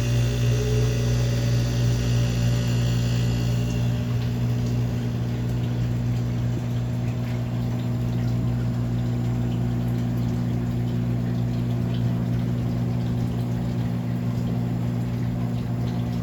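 1973 Carrier Weathermate window air conditioner running, its reciprocating compressor humming steadily under the fan's air noise. A higher hiss dies away about four seconds in.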